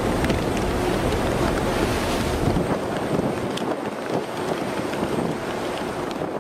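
Wind buffeting the microphone over the rush of churning sea water between two ships running side by side. The low buffeting eases about halfway through.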